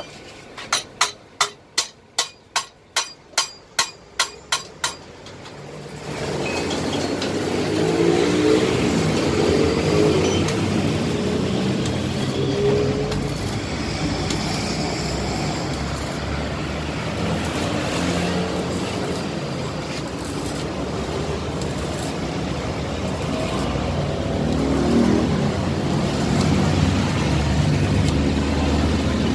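A hammer strikes the welded steel swing arm in a quick run of sharp metal blows, about two a second, for some five seconds. Then a steady engine-like running noise sets in and continues.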